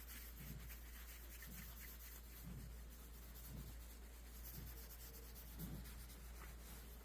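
A hand rubbing and scratching a cow's hair coat: soft, faint strokes about once a second over a steady low hum.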